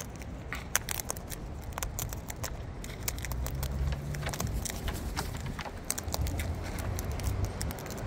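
Sulphur-crested cockatoo cracking seed husks with its beak: a stream of irregular sharp clicks and crackles.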